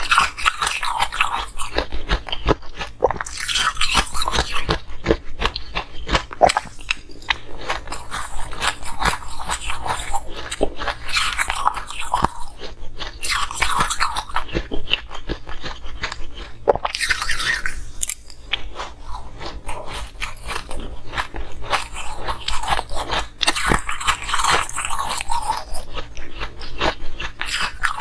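Close-miked chewing of crushed coloured ice: a steady run of small crisp crunches, with louder crunching every few seconds as each fresh spoonful is bitten.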